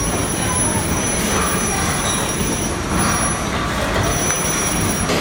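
Steady background hubbub of a large store: an even rumble with faint distant voices and a thin, high-pitched whine.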